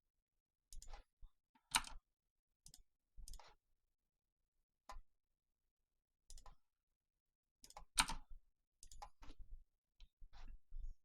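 Irregular clicks of a computer mouse and keyboard, about a dozen scattered short clicks with silence between them, the loudest about eight seconds in.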